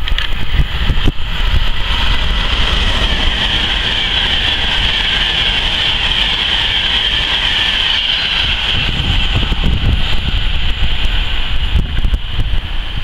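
Class 390 Pendolino electric train running through the station at speed: a steady high rushing hiss that builds about a second in and fades near the end, over a low rumble of wind on the microphone.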